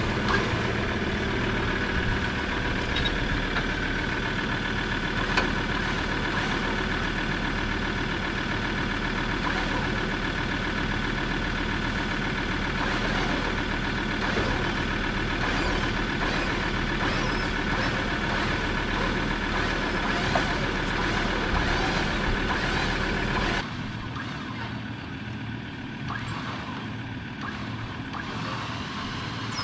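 A 4WD's winch running steadily as it pulls a camper trailer around, with the vehicle's engine running underneath. The winch cuts off suddenly about 24 seconds in, leaving a quieter steady hum.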